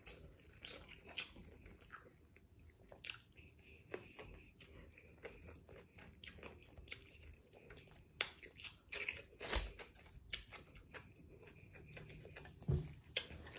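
Close-miked mouth sounds of a person chewing bites of a chicken burrito: soft, irregular wet smacks and clicks, with a couple of louder smacks a little past the middle.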